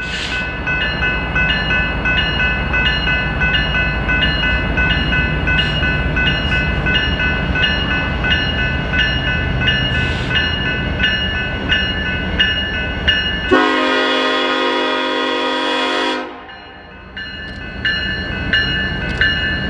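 Empty grain shuttle train's hopper cars rolling past with a steady rumble and an even clicking rhythm from the wheels. About 14 seconds in, a locomotive horn (a Nathan K5LLA five-chime) sounds for about three seconds.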